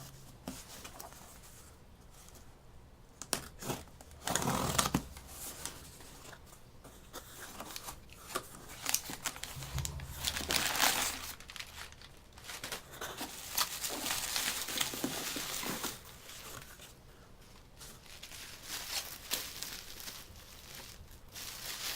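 A cardboard shipping box being opened by hand: packing material crinkling and rustling in irregular stretches, with tearing and a few sharp clicks and knocks.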